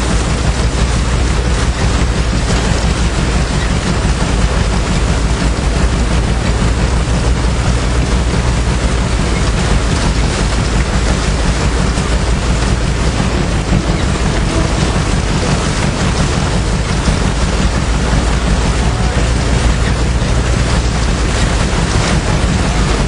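Keck-Gonnerman threshing machine running steadily and loudly while threshing rice.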